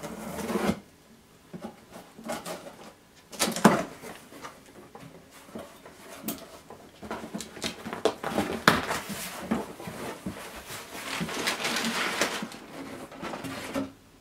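Cardboard box being opened and unpacked: flaps pulled open with knocks of cardboard, then crumpled kraft packing paper rustling and crinkling for several seconds as hands dig through it and lift out a boxed item.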